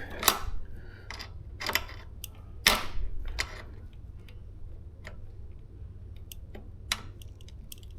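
Scattered clicks, taps and knocks of hands working a new tire onto an e-bike wheel rim, the loudest just after the start and near three seconds in, with sparser ticks after.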